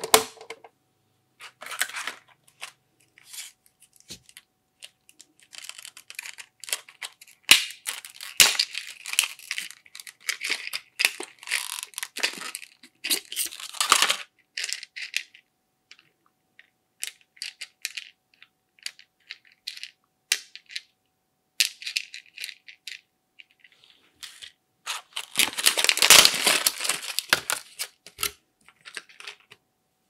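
Clear plastic blister packaging crinkling and small plastic toy pots and pans clicking as they are handled: scattered sharp clicks, with two longer spells of dense crackling rustle, the longer one in the first half and a shorter one near the end.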